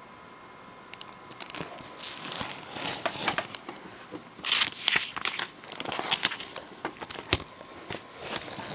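Paper sheet-music pages handled and turned close to the microphone: irregular rustling and crinkling, starting about a second in and loudest about halfway through.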